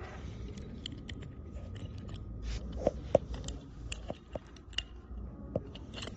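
Scattered small metal clicks and taps as the stainless steel parts of a mechanical seal, its collar and the setting clips with their cap screws, are handled and set down on the seal flange, the two sharpest close together about three seconds in. A low steady rumble lies underneath.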